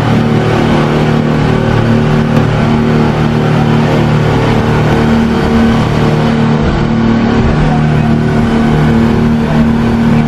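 A bank of four outboard motors driving a fast passenger boat at speed: a loud, steady engine drone over the rush of wind and churned water.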